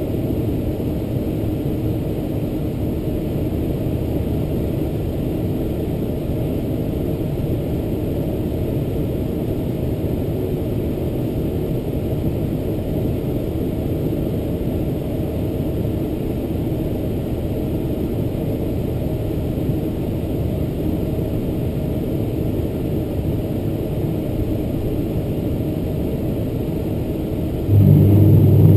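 Inside the cabin of a Boeing 747-400 taxiing, its General Electric CF6-80C2 turbofans running at low thrust give a steady engine rumble with airflow hiss. Near the end the sound abruptly grows louder and deeper, with a steady low hum.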